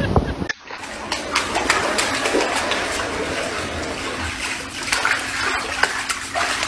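Surf on a beach cuts off about half a second in. Then comes steady rushing and splashing water over a flooded floor.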